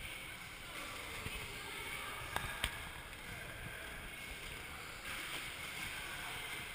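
Roller skate wheels rolling on a bare concrete floor, a steady rumble with hall echo, with two sharp clacks a little over two seconds in.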